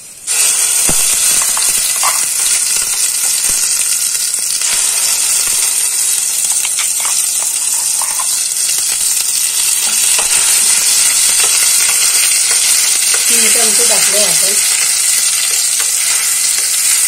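Onion-coconut paste (vatan) dropped into hot oil in a steel pot, sizzling loudly at once and frying with a steady sizzle while a steel spoon stirs it. Small clicks of the spoon against the pot come now and then.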